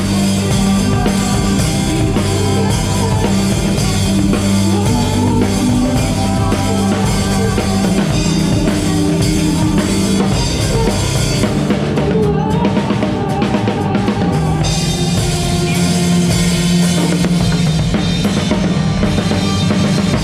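A band playing an instrumental passage at a sound check: a drum kit with bass drum and snare drives it over held low bass notes, with no singing. For a couple of seconds past the middle the bright high end drops away, then returns.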